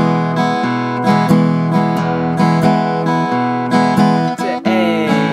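Acoustic guitar played slowly in a flatpicking pattern: a single bass note picked, then an up-down-up strum, then the alternate bass note and another up-down-up strum, on an E major chord with the bass alternating between the sixth and fifth strings. The chord changes near the end.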